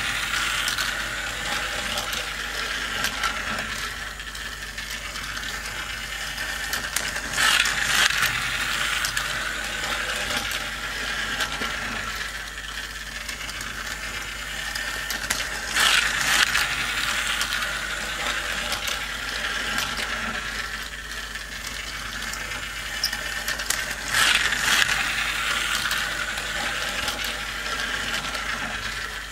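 Motorised plastic toy race track running: a steady whir with gear and ratchet-like clicking as small toy cars are carried round the track. About every eight seconds there is a louder clatter as a car rattles past on the near lane.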